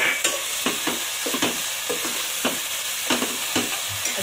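Slotted steel spoon stirring and scraping onions, tomatoes and green chillies in a nonstick pot, about two strokes a second, over a steady sizzle of frying.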